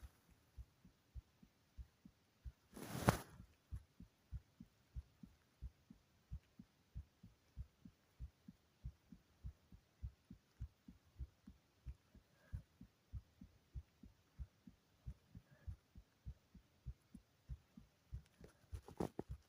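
Faint, muffled low thumps repeating steadily, about two and a half a second, with one louder rustling burst about three seconds in.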